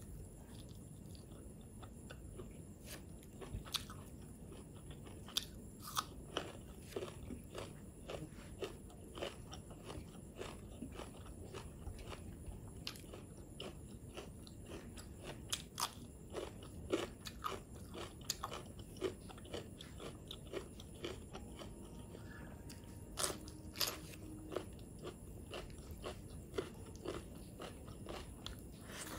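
Close-miked chewing and biting of food, a person eating rice and curry by hand, with many short crisp crunches scattered through it.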